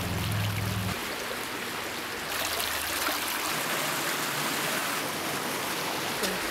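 Shallow creek running over rocks in a steady rush of water, brighter and hissier from about two seconds in, with a low rumble under it in the first second.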